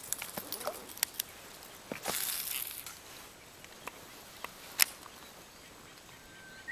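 A cast with a spinning rod and reel: a short hiss of line running out about two seconds in, among scattered small clicks of reel and rod handling, with one sharp click near five seconds.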